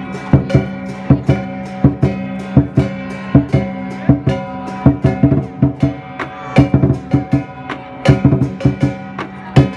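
Music with a steady drum beat under held notes and plucked guitar.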